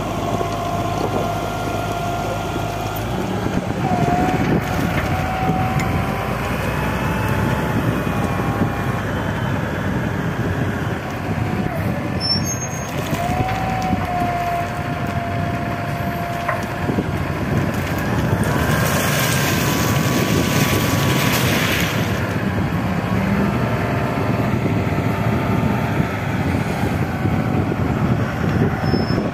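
Hindustan wheel loader's diesel engine running under load as the bucket digs into a pile, lifts and tips, with a whine that shifts in pitch. A few seconds of hiss come a little past the middle.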